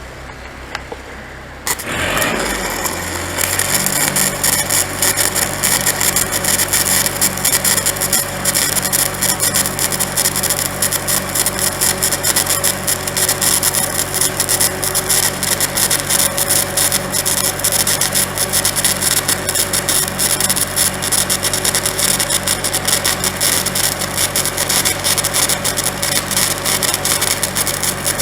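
Stick-welding arc laying a 7018 fill pass on a backhoe boom repair, a steady dense crackle once the arc is struck about two seconds in. Underneath, an engine-driven Lincoln SA-200 Pipeliner welder idles at first, then its engine speeds up and runs steadily under the load of the arc.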